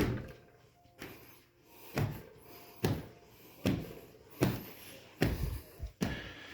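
Footsteps climbing a flight of stairs indoors: a series of thuds, a little more than one a second after the first two.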